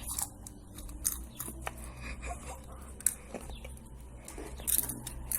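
Someone chewing popcorn close to the microphone: irregular crunches and crackles, the sharpest about three seconds in.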